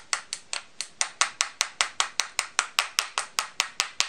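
Small ball-peen hammer tapping metal pins back into a Bosch 12V impact driver's impact mechanism: a steady run of quick, light metallic taps, speeding up to about five a second and stopping at the very end.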